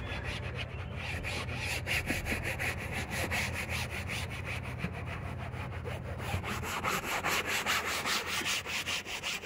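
A bristle brush scrubbing a car's fabric headliner in rapid, even back-and-forth strokes, several a second, with a steady scratchy hiss.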